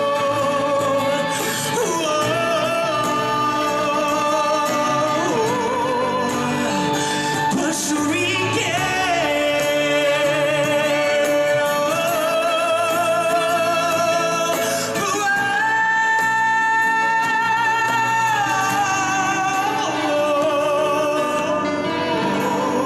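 Live band music: a lead melody of long held notes with wide vibrato over the full band, played at a steady, loud level.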